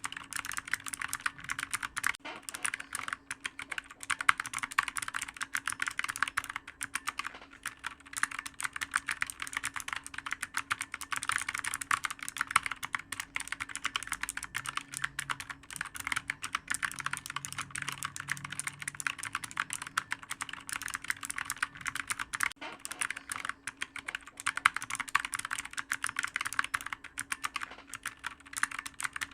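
Continuous fast typing on a clicky computer keyboard, a dense stream of sharp key clicks with brief pauses here and there.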